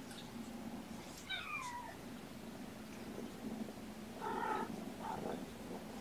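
Cat meowing twice: a falling meow about a second in and a louder meow about four seconds in, over a steady low purr.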